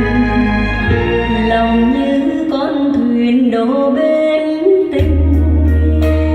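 A slow song with a singer holding long, wavering notes over sustained instruments. The deep bass drops out about two seconds in and comes back near the end.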